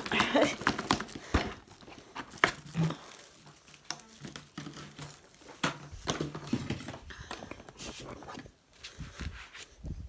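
Scattered clicks, knocks and rustles of things being handled close up, with a quiet voice now and then.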